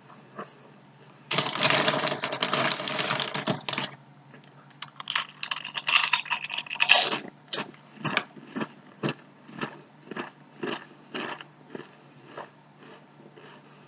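Loud crinkling of a SunChips bag, twice, as a hand rummages in it for chips. Then crunching chews of the multigrain chips, about two a second.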